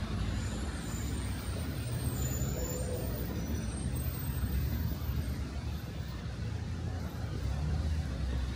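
Steady city street traffic noise on wet roads: a low rumble of passing vehicles with an even hiss of tyres and rain over it.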